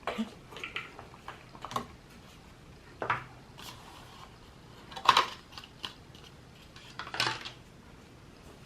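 Album packaging and printed cards being handled: scattered rustles, light taps and clicks, with the sharpest ones about three, five and seven seconds in.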